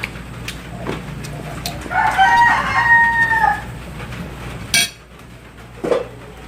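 A rooster crowing once, a call of about a second and a half. It is followed about a second later by a sharp click.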